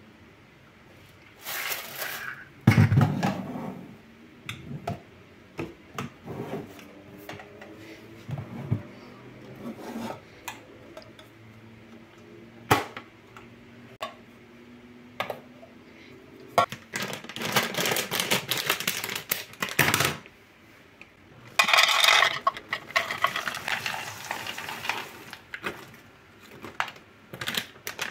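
Clear plastic airtight food canisters with snap-lock lids being handled, with scattered sharp clicks and knocks as lids are opened and containers are set down. Later come two longer rattling stretches as peanuts are poured into a canister from a crinkly plastic snack bag.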